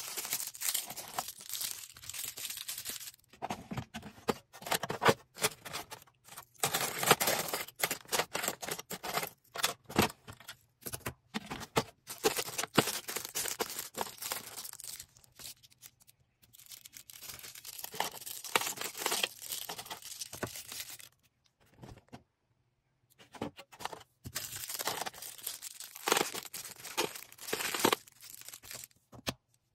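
Packaging being handled while an order is packed: crinkling, rustling and tearing of plastic or paper wrapping in stretches, with short pauses in between.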